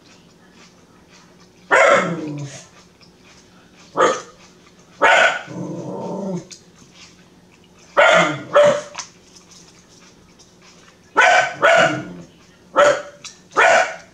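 A dog barking repeatedly: about nine short barks, some in quick pairs, a second or a few seconds apart.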